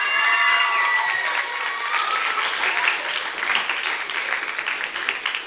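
Theatre audience applauding at the end of a dance performance. Dense clapping runs throughout, with high whoops and cheers over it that die away about two seconds in.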